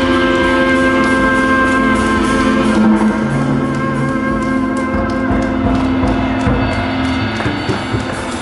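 Live jazz quartet playing: trumpet in long held notes over upright bass, keyboard and a drum kit with cymbals.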